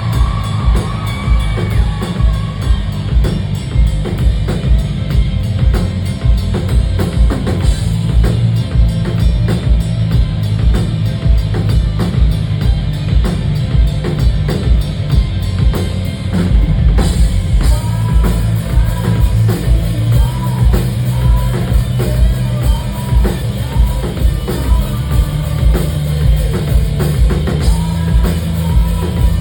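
A rock band playing live: full drum kit with a steady driving beat and heavy kick drum under bass and guitars, with little or no singing. About halfway through, a short melodic figure starts repeating every second or so.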